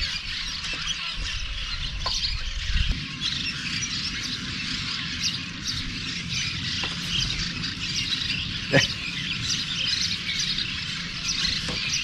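A dense, continuous chorus of many small birds chirping at once, with a short low rumble a couple of seconds in and one sharp tick about nine seconds in.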